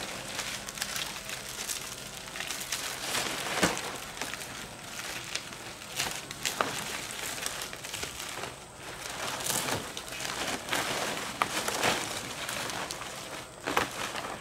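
Irregular crinkling and crackling, dotted with sharp clicks and snaps at uneven intervals.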